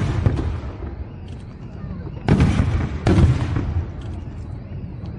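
Fireworks going off: a burst dying away at the start, then two more bursts about two and three seconds in, each with a crackling tail, over a steady low rumble.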